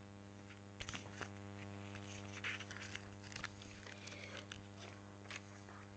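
Quiet room tone: a steady low electrical hum with a few faint scattered ticks and clicks.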